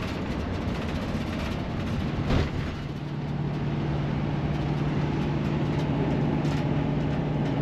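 Tiffin motorhome driving at highway speed, heard from inside the cab: steady road and engine noise, with a low engine hum that grows stronger about three seconds in. A brief knock sounds a little past two seconds.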